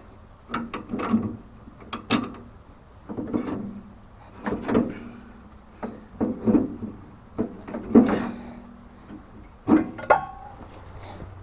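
An irregular series of mechanical clanks and knocks, about one or two a second, some with a short ring, like hand work with tools on metal parts.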